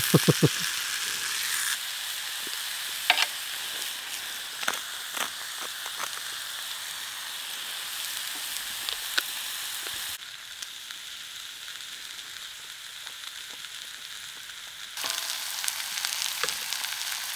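Slices of pork neck sizzling as they fry in a hot pan, a steady hiss with a few sharp clicks and taps from tongs. The sizzle turns quieter for a few seconds past the middle, then comes back.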